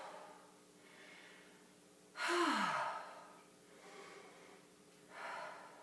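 A woman breathing deeply while holding a seated forward-fold stretch: a sighing exhale about two seconds in that drops in pitch, and a softer breath near the end.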